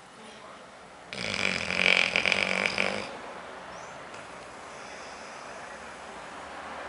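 Chocolate Labrador retriever snoring in her sleep: one loud snore starts about a second in and lasts about two seconds, followed by quieter, steady breathing.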